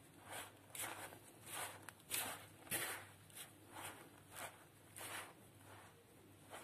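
A hand squeezing and pressing a crumbly mix of flour, semolina, sugar and ghee against a plastic bowl: a gritty rustling scrunch about twice a second as milk is worked in toward a stiff dough.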